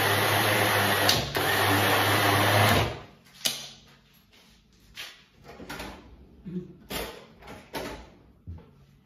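Electric food processor grinding blanched almonds, a steady motor running with a brief dip about a second in, then stopping about three seconds in. After it stops come a series of short knocks and taps.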